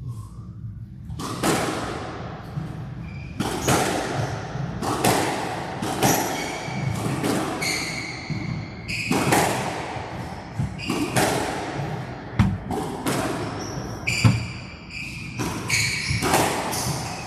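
A squash rally: a squash ball struck by rackets and thudding off the court walls again and again, starting about a second in, with shoes squeaking on the court floor between shots.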